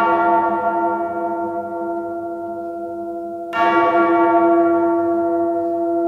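A large bell tolling as the opening of a song. A stroke just before rings on and slowly fades, and a second stroke comes about three and a half seconds in, ringing on the same way.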